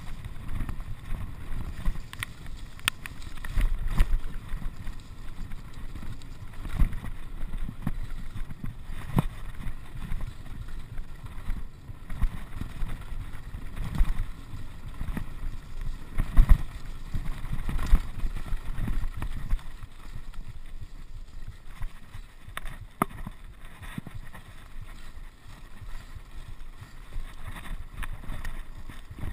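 Mountain bike riding fast over a rough, muddy track: a rumble of tyres and wind buffeting the microphone, with frequent clicks and rattles from the bike jolting over stones.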